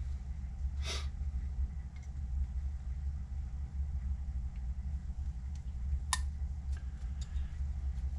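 Small parts being handled on a workbench: a brief rustle about a second in, then a sharp click and a few light ticks near the end, over a steady low hum.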